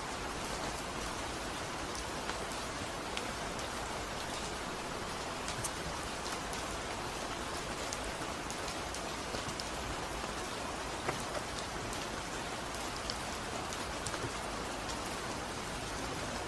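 Steady rain falling, an even hiss with many small drops ticking and pattering on a surface.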